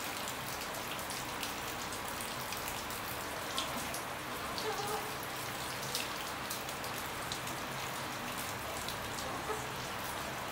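Water running and spattering steadily onto a tiled bathroom floor, with faint drips and splashes.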